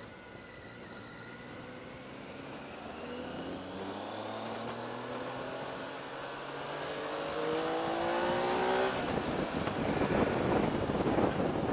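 Triumph Tiger 800's three-cylinder engine accelerating hard out of a bend, its pitch rising steadily for several seconds. About nine seconds in, wind noise on the helmet microphone becomes louder than the engine as speed builds.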